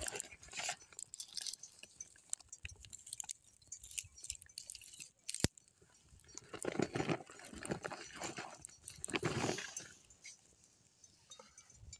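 Small fire of dry twigs crackling and snapping in scattered clicks, with one sharp snap about five seconds in. Two longer rushing gusts come in the middle and around nine seconds.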